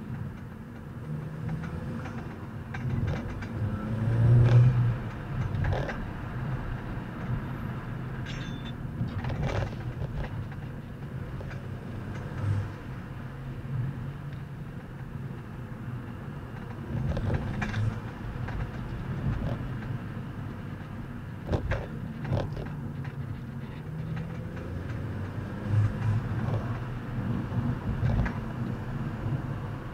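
Car on the move: a steady low rumble of engine and road noise, swelling briefly a few seconds in, with scattered light clicks and knocks.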